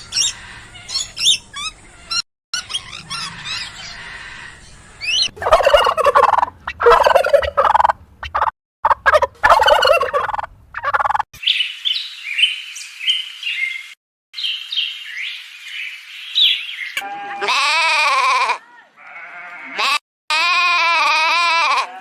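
An edited run of farm animal calls with abrupt cuts between clips: high bird chirps, then a series of loud poultry calls, then long wavering animal calls near the end.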